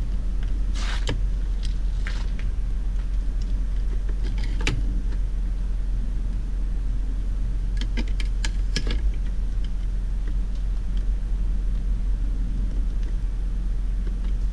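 Plastic door trim panel being pressed onto a car door: a few sharp clicks and scrapes, a cluster of them near the middle. Under them runs a steady low hum.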